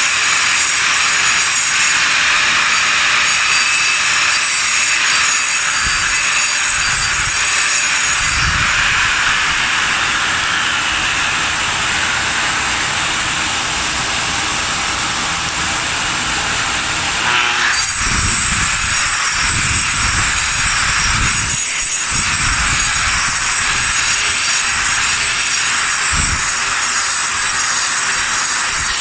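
Grinder cutting down concrete around a floor drain: a steady, loud, hissing grind of the abrasive wheel on the slab, running continuously with small shifts in tone as the grinder is worked.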